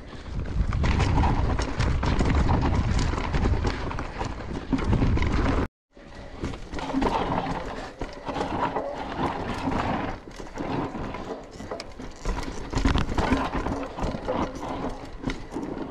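Mountain bike riding fast down a dirt trail, heard from a camera on the rider: a dense run of rattles and knocks as the bike bounces over ruts and roots, over a rumbling rush of tyres on dirt. The sound cuts out for a moment a little before six seconds in, then carries on.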